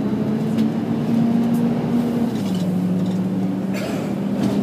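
Volvo B10BLE bus heard from inside the saloon while driving, its engine and cooling fan giving a steady drone. The pitch climbs over the first two seconds, then drops and holds lower, with a couple of short rattles near the end.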